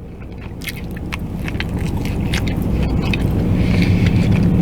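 Chewing with small crunchy clicks, over a vehicle's low rumble that swells steadily louder.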